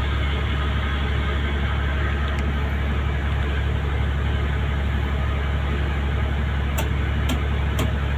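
Steady low engine drone of a ship under way, with an even hiss over it and a few faint clicks near the end.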